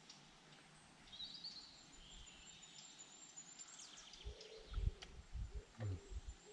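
Woodland birds chirping faintly, then several low thumps and short, low hooting notes in the second half.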